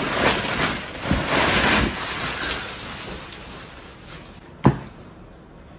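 Packing material and cardboard rustling and crinkling as hands dig through an opened cardboard box, fading after about two seconds, with one sharp knock near the end.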